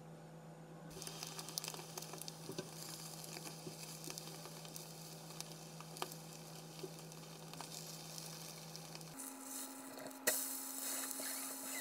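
Cabbage and chicken pancake batter sizzling as it fries in a nonstick frying pan, with small taps and scrapes of a spatula spreading it flat. The sizzle starts about a second in and grows louder near the end.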